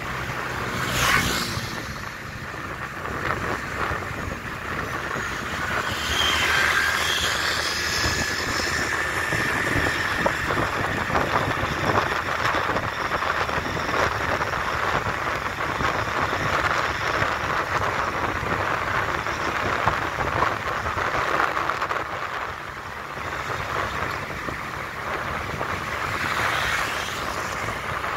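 Traffic and road noise heard while moving along a city road, with wind on the microphone. Vehicles pass about a second in, again around six seconds in, and near the end.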